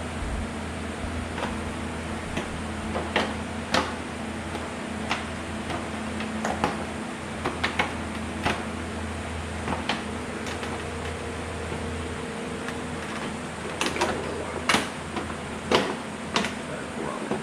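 Scattered sharp clicks and knocks of scooter parts being handled and fitted during reassembly, over a steady low hum; the loudest knocks come near the end.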